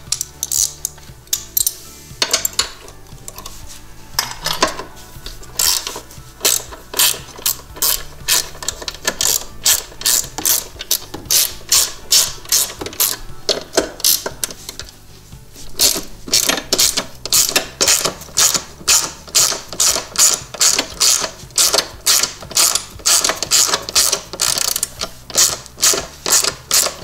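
Hand socket ratchet clicking in quick repeated strokes as a bolt is backed out, with a short break a little past halfway.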